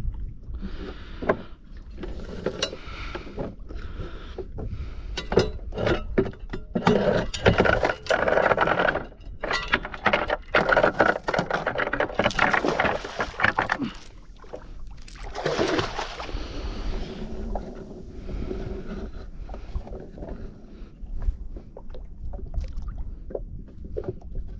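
Irregular knocks and clatter of gear being handled aboard a small fishing boat, over a steady low rumble of wind and water, with stretches of noisy hiss in the middle.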